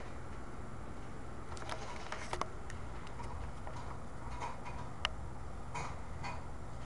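Chihuahua mother licking her newborn puppy: irregular wet clicks and smacks, a cluster about two seconds in and more between four and six seconds, over a steady low hum.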